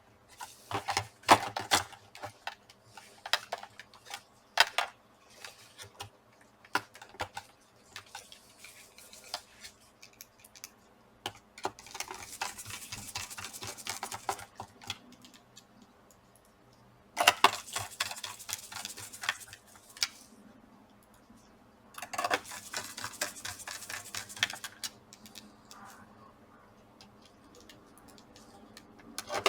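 Hands reassembling a laptop: sharp clicks and taps of small plastic and metal parts being fitted, then three stretches of rapid scratchy ticking a few seconds long.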